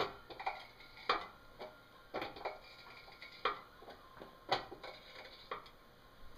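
Hydraulic shop press being hand-pumped to press a front hub bearing assembly together: sharp metallic clicks and knocks from the pump lever and press, roughly one a second.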